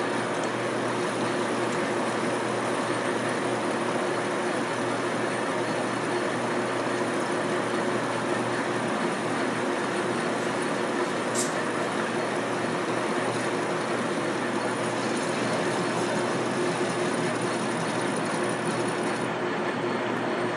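A 1944 Sidney 16-inch engine lathe running under power and taking a turning pass: a steady mechanical hum and gear whine over an even hiss, with one sharp click about halfway through. A high, thin whine cuts out shortly before the end.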